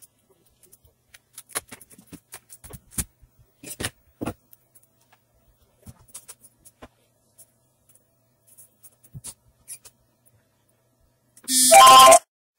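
Light scattered clicks and taps of a circuit board and soldering iron being handled while a replacement power-supply chip is soldered onto the board. Near the end a short, loud tone of several steady pitches at once, like a beep.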